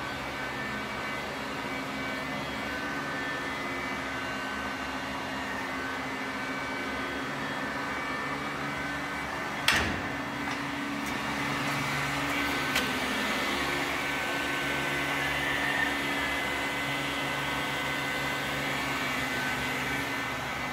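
Steady hum of a running motor or blower, with a few constant tones in it. A single sharp knock about ten seconds in.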